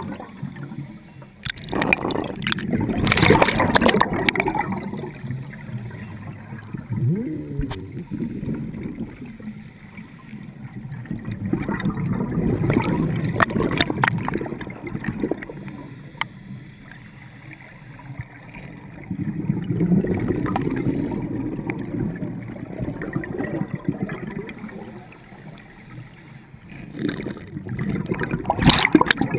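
Scuba diver breathing through a regulator underwater: exhaled bubbles gurgle out in swelling bursts every several seconds, with quieter stretches between breaths.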